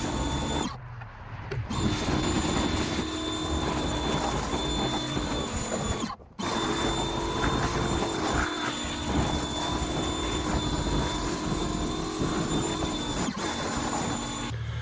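Pressure washer running, a steady mechanical drone with a high steady whine. It cuts out briefly twice, about a second in and about six seconds in.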